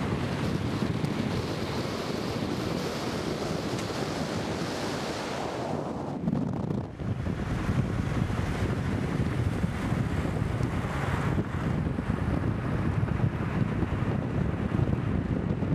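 Wind rushing over the microphone and road noise from a car driving at highway speed, a steady noise with a brief dip about seven seconds in.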